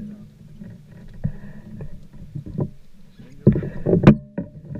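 Steady low hum aboard a fishing boat, with scattered knocks and handling thumps; a louder cluster of thuds ending in a sharp click comes about three and a half to four seconds in.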